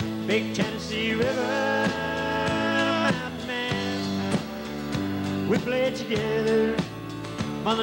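A country band playing live: strummed acoustic guitar and drums, with a lead line of long held notes that slide between pitches.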